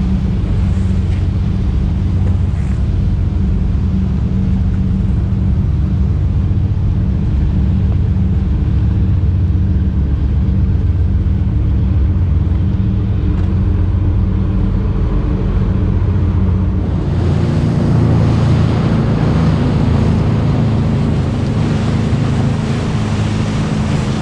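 Boat's 200-horsepower outboard motor running steadily under way, a low, even drone, with wind and water rushing past the hull. About two-thirds of the way through, the rush of wind and spray grows louder and brighter.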